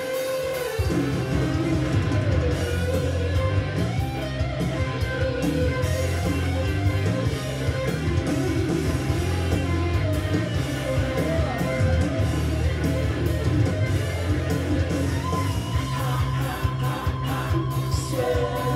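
Rock song with guitar and singing playing from a Technics CD player through two-way hi-fi floor speakers, picked up in the room by the camera's microphone.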